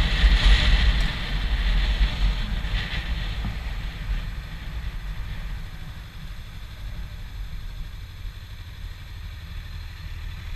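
Motorcycle riding on a highway, engine rumble and wind rush on the camera microphone, the noise dying down gradually over several seconds.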